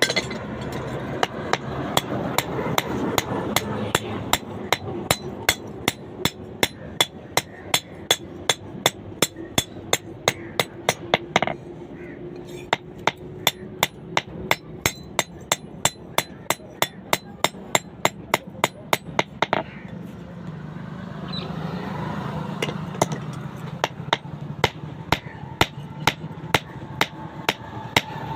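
Blacksmith's hand hammer striking a steel rod in a steady rhythm, about two to three blows a second, as the rod is drawn out to a point. The blows stop for about two seconds roughly two-thirds of the way through, then start again.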